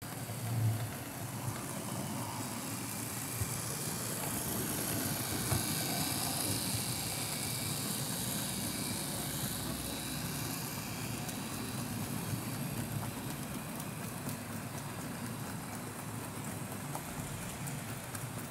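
Model steam locomotive (Fleischmann BR 41) running along the layout track with its coal train: a steady whirr from the electric motor and wheels, growing louder toward the middle as it passes close, with a few sharp clicks.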